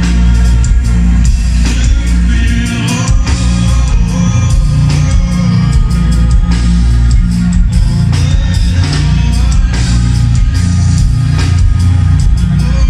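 Live rock band playing over a venue PA, a lead vocalist singing over drums, guitar and keyboards, with a very heavy bass, recorded from within the crowd.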